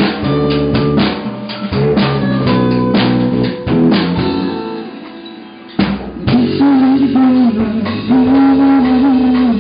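Rock band playing an instrumental break live: drum kit with snare and bass drum hits under guitar and bass. The drums thin out and the sound dies away about four seconds in, then the band crashes back in together near six seconds with loud held notes.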